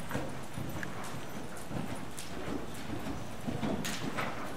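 Hoofbeats of a ridden horse cantering on soft arena dirt, a steady rhythm of muffled thuds.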